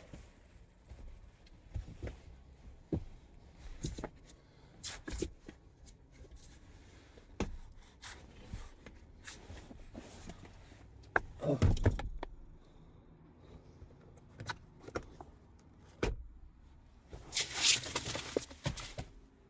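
Handling noises: scattered knocks and clicks, with two louder scraping, rustling bursts, one about eleven seconds in and one near the end.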